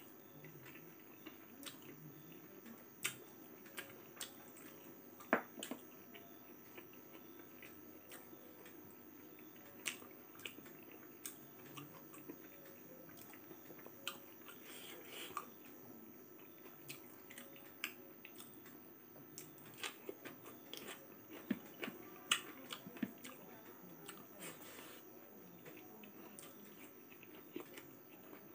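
Faint close-up eating sounds: chewing and mouth smacks, with scattered small sharp clicks as fingers pick food from the plate.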